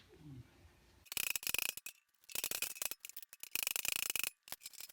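Hammer rapidly striking a steel car fender in four quick runs of blows, each with a high metallic ring, as dents in badly stretched, wavy sheet metal are worked.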